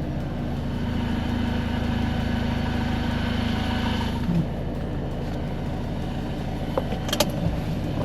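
Campervan engine running steadily at idle, heard from inside the cab as the van rolls slowly in neutral; a short click about seven seconds in.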